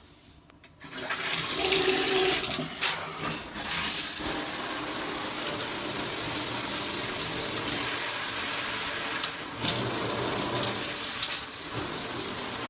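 Water spraying from a HOPOPRO handheld shower head, turned on about a second in and then running as a steady hiss, with a few brief clicks.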